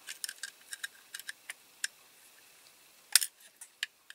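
A small metal hand tool clicking and scraping against a diecast model car's body as a glued-on part is prised at: a quick run of light ticks over the first two seconds, then a sharper click about three seconds in and a few more.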